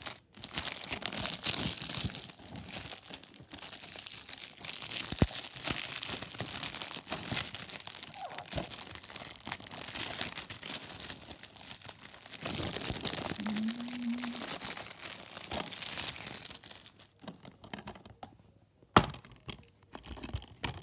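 Plastic shrink-wrap being torn and crinkled off a DVD case, a long run of crackling with many small clicks. Near the end there is one sharp click as the plastic case is opened.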